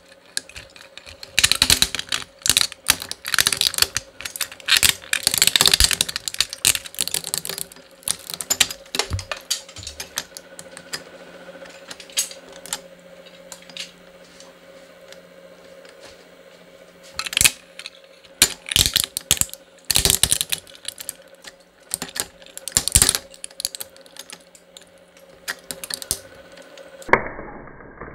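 Small twin-shaft shredder cracking and crunching a hard plastic toy truck, sharp snaps coming in dense runs over the steady hum of its gear motor. The snaps thin out about eight seconds in and come back in clusters later on.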